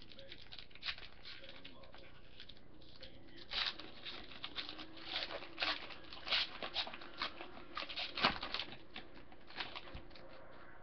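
Football trading cards being handled and flipped through, giving a run of short rustles and flicks that starts about three and a half seconds in, with a sharper snap near the end.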